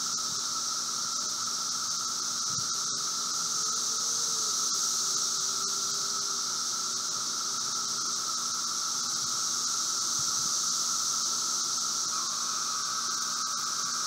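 Chorus of Brood V seventeen-year periodical cicadas (Magicicada): an even drone of many cicadas, with a steady nearer song over it. Near the end, a nearby cicada's call slides down in pitch.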